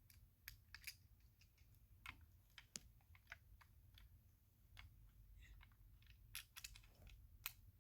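Faint, scattered light clicks and taps of tiny screws and small diecast toy-car parts being handled, irregular, a few to the second at most.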